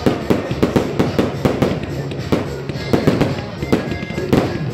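Aerial fireworks bursting in quick succession: a rapid run of sharp bangs and crackles, several a second.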